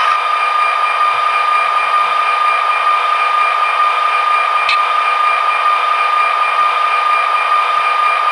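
Diesel sound from the MRC onboard sound decoder of an HO-scale SD45-2 model locomotive, played through its tiny speaker as a steady whine over hiss with no bass. A single click about four and a half seconds in.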